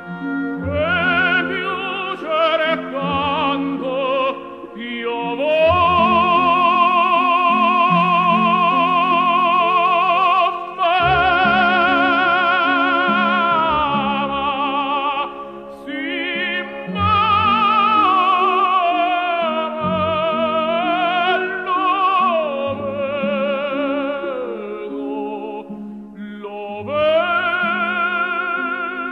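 Operatic singing recorded with musical accompaniment: a single voice holds long, wide-vibrato notes of several seconds each, with shorter phrases between them, over steady lower accompanying notes.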